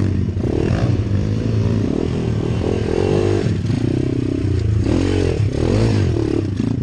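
A YX 140 cc pit bike's single-cylinder four-stroke engine running close by, revving up and down in a series of rising and falling blips as it is ridden slowly over rough dirt.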